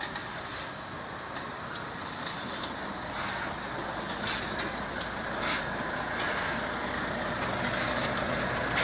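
Volvo FH 750 tractor unit's 16-litre straight-six diesel working hard under heavy load, climbing a steep dirt hill while towing a dead, fully loaded nine-axle truck. The steady low engine rumble grows gradually louder as the truck draws near.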